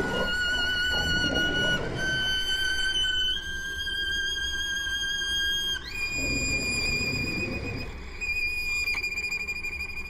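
Solo violin holding long, high notes with vibrato, each a little higher than the last, then leaping up to a higher held note about six seconds in. A low rumble sits underneath near the start and again between about six and eight seconds in.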